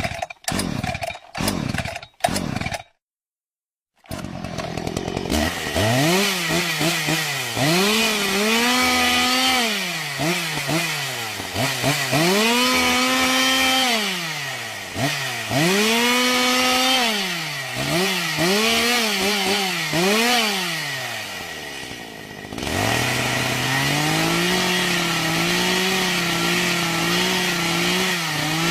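Chainsaw engine: a few short bursts and a second's silence, then it runs and is revved up and down over and over, each rev rising, holding high and falling back to idle. Near the end it is held at a steady high speed for several seconds before revving again.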